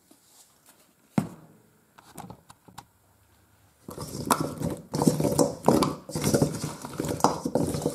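Frozen, seasoned chicken wings being tossed with a silicone spurtle in a stainless steel bowl: a single knock about a second in, then from about halfway continuous clattering and scraping of the wings against the bowl.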